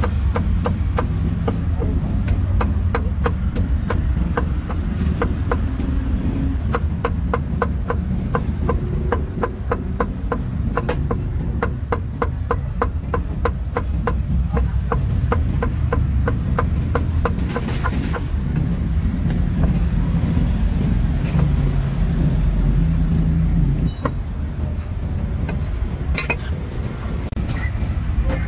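Busy street ambience with a steady low traffic rumble. Through the first half, a long run of quick, evenly spaced knocks sounds over it.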